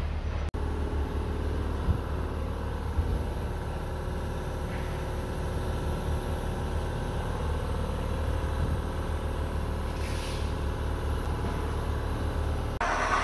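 A vehicle engine running steadily, a low hum with two short clicks in the first few seconds and a brief hiss about ten seconds in.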